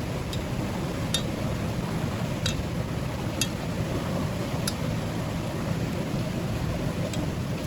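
Steady low rushing of water, with about six sharp clicks scattered through it.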